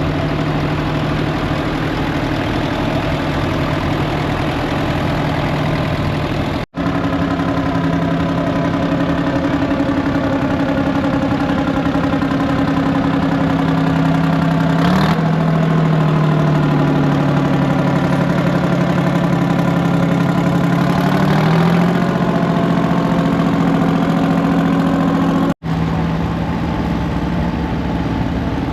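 An engine idling steadily, its pitch shifting about halfway through and again a few seconds later. The sound drops out for an instant twice.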